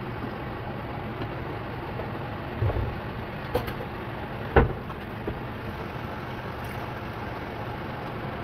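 Diced vegetables cooking in a pan with a little liquid, a steady sizzling hiss, with a few knocks of a wooden spoon against the pan about three to five seconds in, the one near the middle the loudest.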